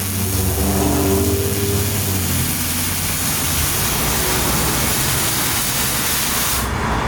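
A steady, loud hiss over a low hum, cutting off suddenly near the end.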